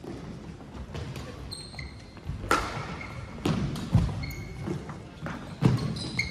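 Badminton singles rally on a hardwood gym floor: several sharp racket hits on the shuttlecock and heavy footfalls as a player lunges, with brief shoe squeaks, echoing in a large hall.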